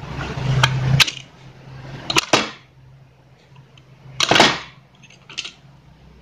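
Handling noise of electrical wires being twisted and arranged inside a plastic fan base: several sharp clicks in the first two and a half seconds and a short rustle about four seconds in. A low hum fades out after about a second.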